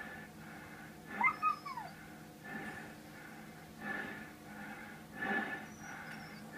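A dog whining: one high, arching whine about a second in, with fainter whimpers later, over a steady background hum.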